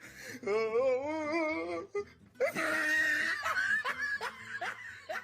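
Laugh sound effects: a laugh with a wavering, warbling pitch, then after a brief pause a second, breathier laugh that breaks into a run of short repeated "ha" pulses.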